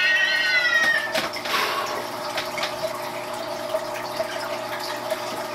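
A cat mewing in a quick run of short, high calls, ending about a second in with one longer, slightly falling mew; a steady hiss follows.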